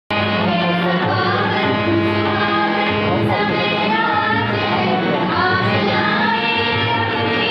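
Music with a group of voices singing over a steady low accompaniment.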